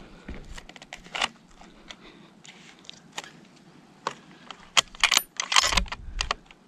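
Small metallic clicks and rattles from handling a scoped rifle and its fittings, sparse at first and then a quick cluster of louder clicks with some rustling about five seconds in.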